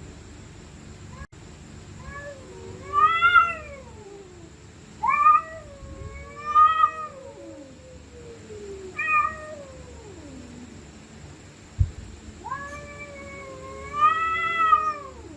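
Stray cats caterwauling, the drawn-out wailing yowls of a cat standoff or fight: five long calls rising and falling in pitch, the last the longest. A short thud comes about twelve seconds in.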